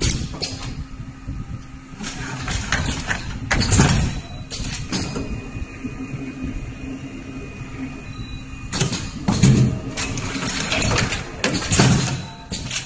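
Automatic rotary spout-pouch filling machine running: a steady low hum, with two clusters of short hissing and clattering bursts as its pneumatic filling and sealing heads cycle, the first about two seconds in and the second about nine seconds in.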